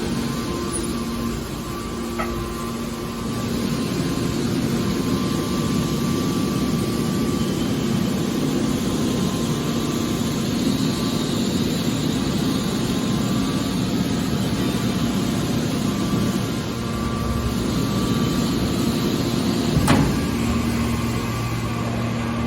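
Scrap car baler running, a steady machine hum with held tones. A faint knock comes about two seconds in and a sharper, louder knock near the end.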